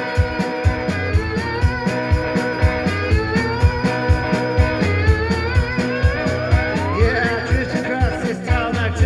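A rock band playing the instrumental intro of a song: electric guitar lines over bass and drums keeping a steady beat, with one rising slide about seven seconds in.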